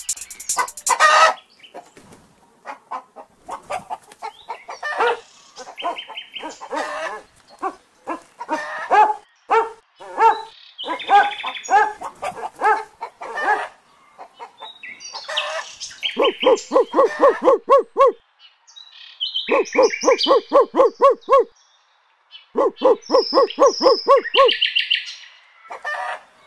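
A rooster clucking and squawking in alarm. Irregular squawks give way to three runs of rapid clucks, about eight a second and about two seconds each, with small birds chirping high above.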